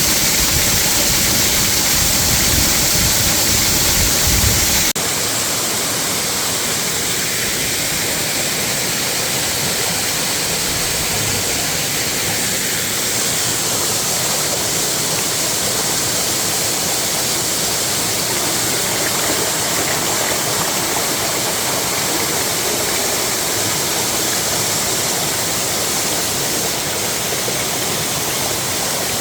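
Waterfall: a steady, loud rush of falling and splashing water. About five seconds in the sound changes abruptly, with a heavy low rumble cutting out.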